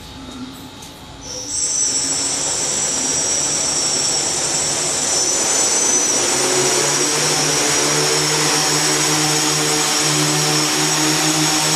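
Octocopter's eight brushless motors and propellers spinning up about a second and a half in, then running with a loud, steady whirr and a high whine. About halfway through, steady lower motor tones come in as the throttle is raised.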